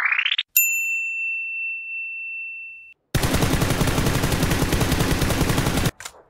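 A sound effect sweeping upward in pitch ends in a bright ding that rings and fades over about two and a half seconds. About three seconds in, a mobile shooting game's rapid automatic gunfire starts and runs for about three seconds before cutting off abruptly.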